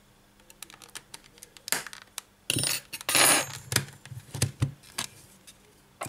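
Plastic back cover of a Sony Xperia E4 smartphone being pried off with a metal pry tool: scattered clicks and short scrapes as the cover's clips snap loose, the loudest a little before halfway through.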